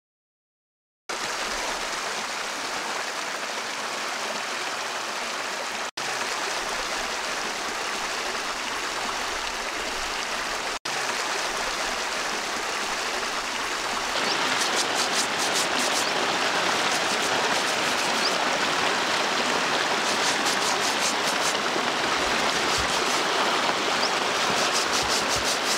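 Stream water running steadily over rocks, starting about a second in and dropping out for an instant twice. About 14 s in it gets louder, and stretches of quick rhythmic scrubbing and splashing come in as clothes are hand-washed in a plastic tub at the water's edge.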